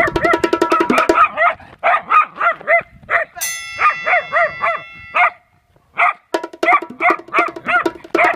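Small dachshund barking in a rapid string of sharp yaps, several a second, breaking off briefly about five seconds in before starting up again.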